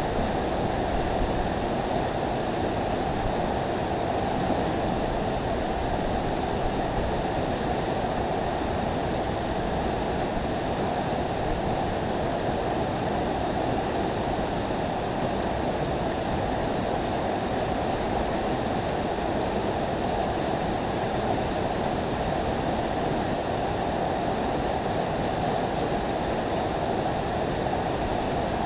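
Water rushing steadily over a river spillway, an even, unbroken rush.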